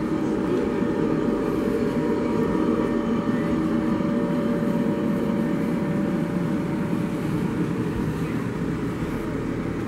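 San Diego MTS trolley car 1008, a Siemens-Duewag U2 light rail vehicle, rolling slowly past: a steady rumble of its running gear with a faint, even hum.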